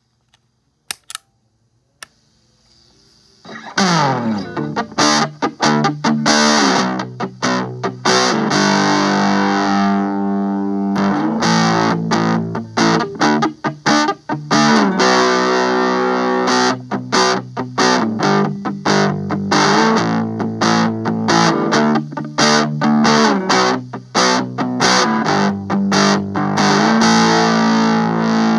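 Electric guitar played through a Mosky DC5 multi-effects pedal with its distortion engaged: a few small clicks, then from about three and a half seconds in, distorted chords strummed in a choppy rhythm with frequent short stops.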